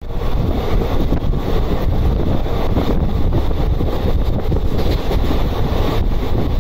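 Passenger train running at speed, heard from aboard: a steady rumble of wheels on the track mixed with loud wind buffeting the microphone.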